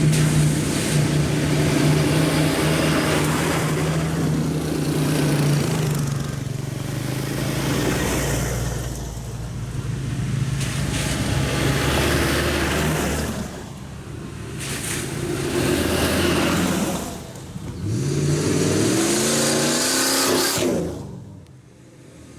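Off-road 4x4 engine revving hard under load, the revs rising and falling with a few brief drops and a climb near the end before it fades.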